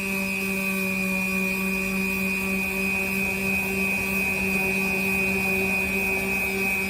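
Power sander with 80-grit paper running steadily against a surface: a constant motor hum and a high whine over the scratchy sound of sanding.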